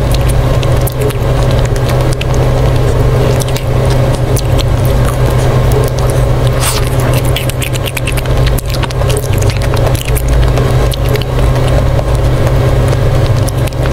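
Close-miked biting and eating of a coated ice cream bar: crisp crunches, wet mouth clicks and smacking, with a burst of crunching about seven seconds in. A steady low hum runs underneath.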